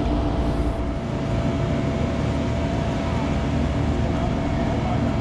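Boat engine running steadily, a low hum with a faint steady whine over it.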